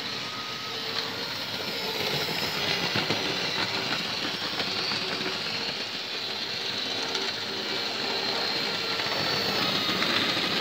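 Hornby model trains running round the track: a steady electric-motor whirr with light, irregular clicking of wheels over the rail joints.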